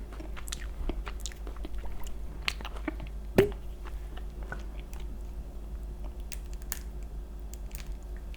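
Close-miked mouth sounds of eating: chewing and biting with scattered short, wet clicks. There is one louder sharp sound about three and a half seconds in.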